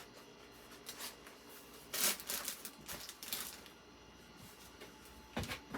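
Frozen food packages being handled and stacked: soft rustles of packaging and light knocks, loudest about two seconds in and again near the end.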